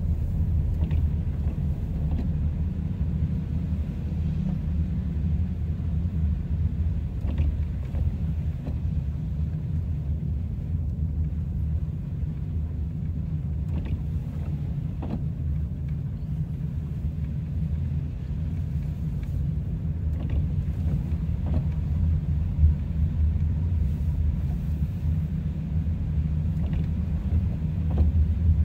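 Steady low rumble of a car in motion, heard from inside the cabin: tyre and road noise with engine drone. A few faint knocks from bumps in the road come through, one a little sharper about two-thirds of the way through.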